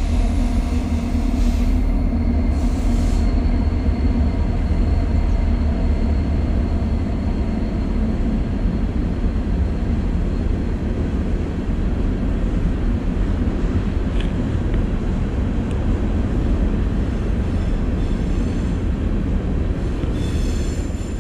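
Freight train cars rolling past: a steady, heavy rumble of wheels on rails, with a faint high whine over the first several seconds.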